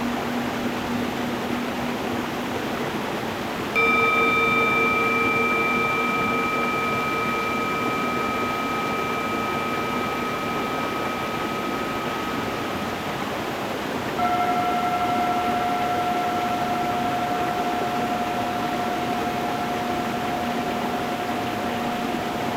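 Steady stream water running over stones, with a singing bowl struck twice: once about four seconds in and again about ten seconds later. Each strike rings with several steady overtones and slowly fades, and the second is higher-pitched.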